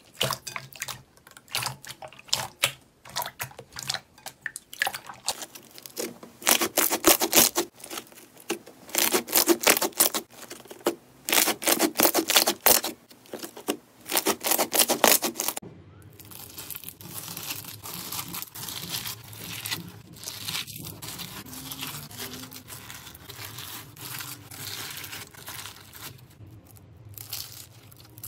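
Hands squishing and stretching slime: dense runs of sticky clicks and pops for the first half, changing a little past halfway to a softer, steadier stretching sound.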